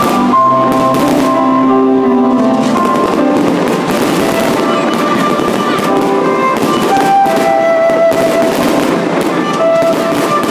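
Fireworks bursting and crackling continuously under loud music with long held melodic notes.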